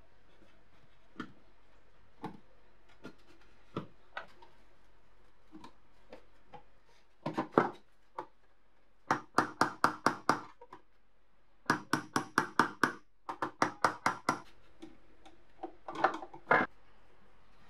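Small parts and a screwdriver clicking and tapping against a kitchen scale's housing as it is reassembled. Scattered single clicks give way to several quick runs of rapid tapping, about six taps a second.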